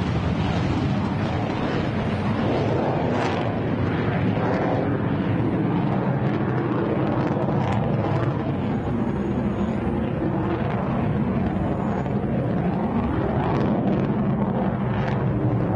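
F-35 fighter jet engine at high power, with afterburner, during takeoff and a steep climb: a loud, steady jet roar with no let-up.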